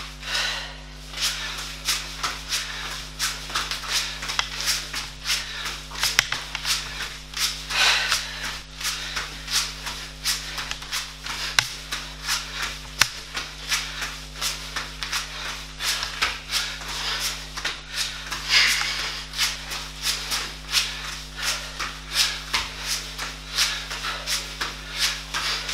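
Feet scuffing and landing on a foam floor mat during fast mountain climbers, in a quick steady rhythm of about two or three scuffs a second.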